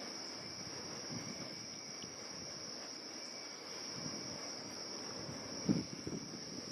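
Insect chorus, a steady high-pitched drone. A single brief low thump comes near the end.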